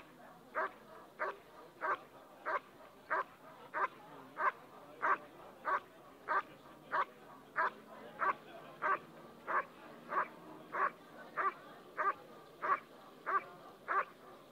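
German Shepherd dog barking steadily at a protection helper who holds a bite sleeve, guarding him in hold-and-bark. The barks come evenly, about three every two seconds.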